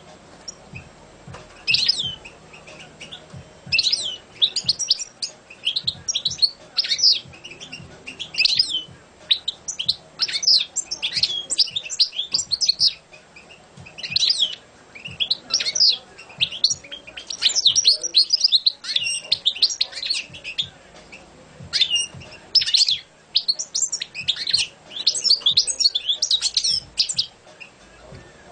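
European goldfinch singing: phrase after phrase of fast, high twittering, broken by short pauses, beginning about two seconds in.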